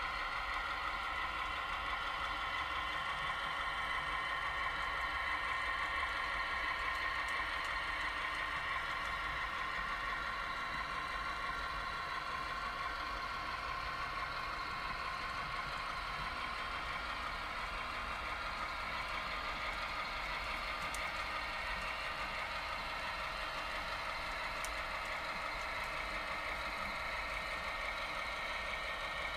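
Model railroad freight train of covered hoppers rolling steadily across a truss bridge: a continuous whir of wheels and running gear, a little softer after the first dozen seconds.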